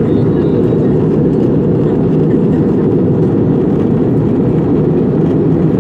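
Jet airliner cabin noise in flight: the steady low rush of engines and airflow heard from a window seat, unchanging throughout.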